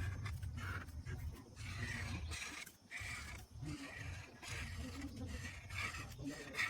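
Pencil scratching on paper in short irregular strokes with brief pauses, over a low steady hum.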